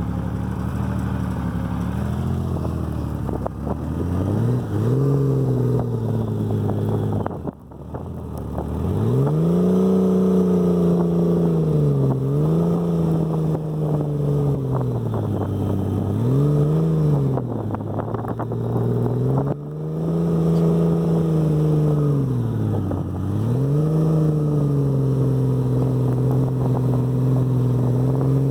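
Motorcycle engine running while riding through snow, its pitch climbing and falling again several times with the throttle. About seven seconds in the note drops away briefly before picking up again.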